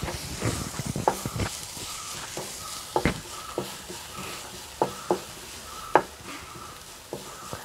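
Metal spatula stirring and scraping chopped onions being sautéed in hot oil in a pan, over a steady sizzle, with irregular sharp knocks of the spatula against the pan, the loudest about three and six seconds in.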